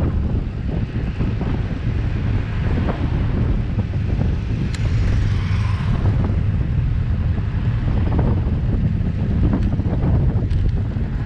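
Wind buffeting a bicycle-mounted camera's microphone while riding, a steady low rumble mixed with road and tyre noise. There are a few faint sharp ticks about five seconds in and twice near the end.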